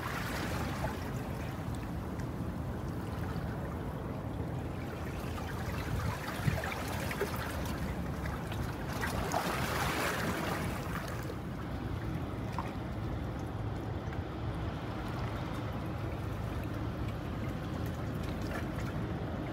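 Harbour water lapping and splashing over a steady low rumble, with a louder wash of water about ten seconds in.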